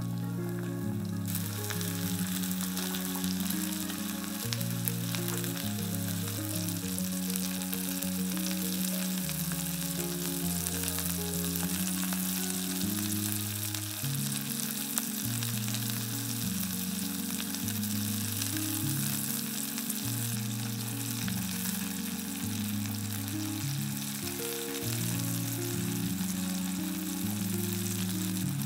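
Pork-belly-wrapped zucchini rolls coated in grated cheese sizzling in olive oil in a frying pan over medium heat; the sizzle jumps up loudly about a second in and then holds steady.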